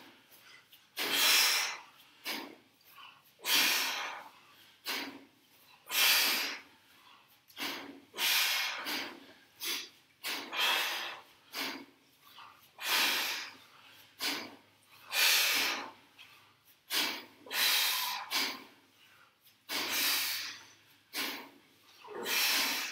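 Sharp, forceful breaths, one every second or so: men exhaling hard through nose and mouth with each rep of kettlebell swings and hinges.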